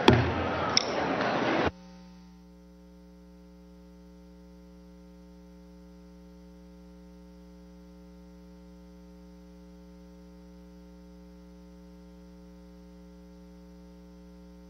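Two sharp gavel knocks over loud chamber noise, which cuts off abruptly about a second and a half in. After that only a steady electrical mains hum of several fixed tones remains.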